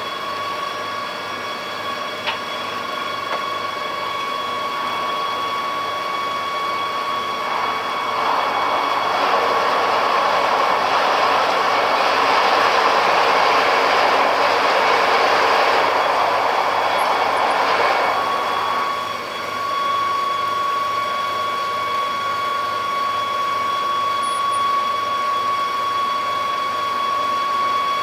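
Ship's machinery running with a steady high whine as a large car ferry berths. A louder rushing noise swells up about seven seconds in and dies away about nineteen seconds in.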